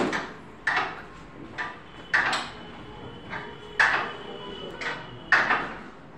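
A series of sharp knocks and clinks at irregular intervals, about eight in all, each ringing briefly, from a carpenter working on the metal fittings of a lift-up bed.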